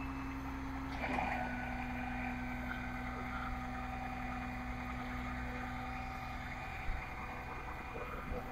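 Flatbed tow truck's engine idling, a steady low drone with a slight shift in pitch and a brief louder moment about a second in.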